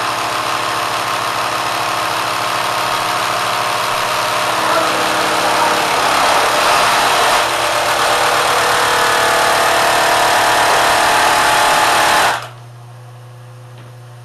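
Kenmore sewing machine driven far past its factory speed by a 3/4 hp electric motor, running loud and steady with a mechanical rattle and whine. It cuts off abruptly about twelve seconds in, leaving a low steady hum.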